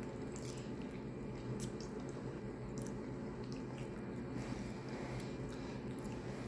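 Close-up eating sounds of a person eating fufu and chicken stew by hand: wet chewing and squishing with many small mouth clicks, over a steady low background hum.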